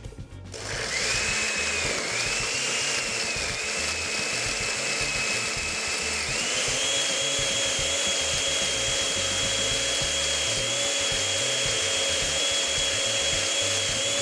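Countertop blender starting up and running, liquefying spinach leaves and stems with water. Its motor whine steps up in pitch about six seconds in and holds there.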